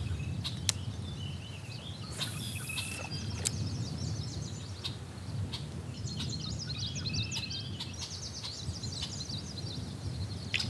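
Outdoor ambience: several birds chirping and singing in quick, repeated calls over a steady low background noise, with a few sharp clicks.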